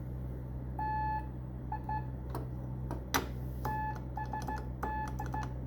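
Morse code sidetone: one steady mid-pitched beep keyed on and off in dots and dashes by a homemade straight key built from a stapler, with a few sharp clicks from the key. The sending comes out clean once the contact gap has been readjusted.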